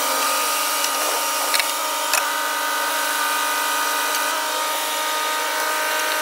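A steady mechanical whine holding one fixed pitch, with a few faint clicks.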